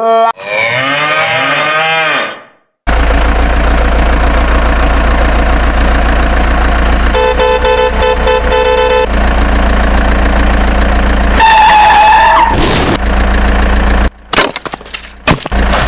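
Cartoon sound effects: a short warbling slide, then a vehicle engine running steadily with a low hum, a horn honking for about two seconds partway through, and a brief gliding tone and choppy clatter near the end.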